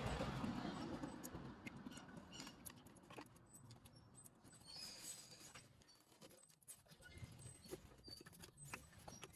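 Faint scattered clicks and light taps, over a soft rushing noise that fades away in the first couple of seconds.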